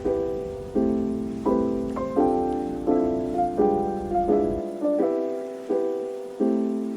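Background piano music: soft chords struck about once every three-quarters of a second, each fading before the next.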